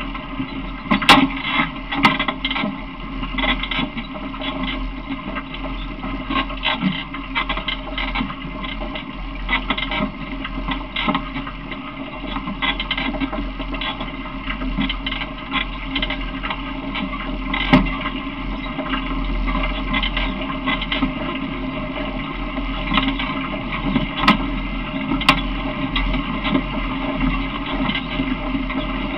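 Running noise of a small open ride-on vehicle carrying riders: a steady rattle and rumble with scattered sharp clicks and knocks.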